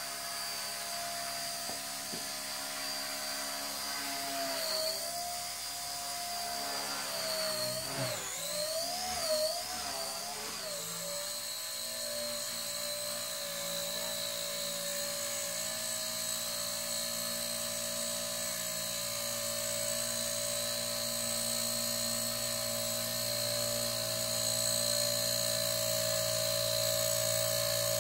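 Blade Nano S2 micro RC helicopter in flight, a steady high whine from its motors and spinning rotors. About eight to ten seconds in the pitch wavers up and down a few times, then it settles and grows louder toward the end as the helicopter comes close.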